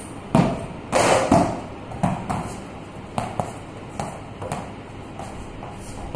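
Knocks of a plastic ball off a plastic cricket bat and a hard floor: a few loud ones in the first second and a half, then lighter, fading knocks every half second or so.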